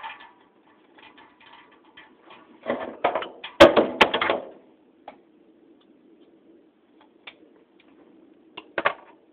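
Metal ceiling-fan parts and brass pull chain clinking and rattling as they are handled and worked off the fan. The loudest clatter comes about three to four and a half seconds in, with two sharp clicks, and there is a shorter clatter near the end.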